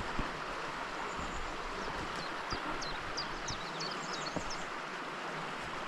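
Steady rush of a fast stream over boulders, with a quick run of small-bird chirps from about two seconds in and a few footsteps on loose slate stones.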